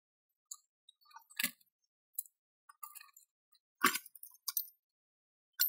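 Steel bicycle roller chains and sprockets clinking and rattling as they are handled and shifted on a concrete floor, with two louder clanks about one and a half and four seconds in.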